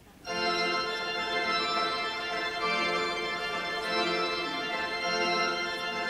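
Organ playing the postlude in sustained full chords with a moving bass line, starting suddenly a moment in.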